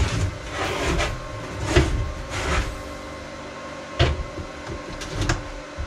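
Handling noise as heavy welding gloves are pulled on and the MIG welding torch and its cable are picked up: rustling swishes, then a few sharp knocks about four and five seconds in, over a faint steady hum.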